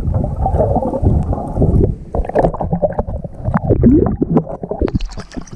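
Water sloshing and gurgling around a camera held at or under the sea surface, heard muffled, with crackling clicks of bubbles from about two seconds in.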